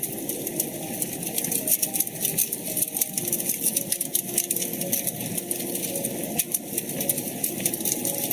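Wood fire crackling in a fireplace: dense, irregular small pops and snaps over a steady low rush of burning.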